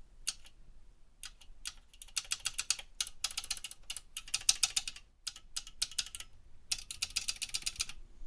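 HP 15254A keyboard's key switches clicking under fast keystrokes. A few single clicks come first, then two long rapid runs with a brief pause between them.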